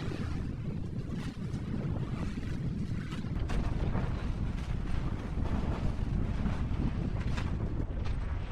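Wind buffeting the microphone over a steady low rumble, with scattered short clicks and knocks; it gets a little louder about three and a half seconds in.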